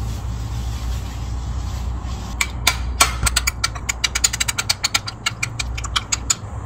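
Kitchen knife cutting a rolled wrap on a wooden cutting board: a quick, irregular run of sharp clicks and taps, several a second, that starts about two seconds in and stops near the end, over a steady low hum.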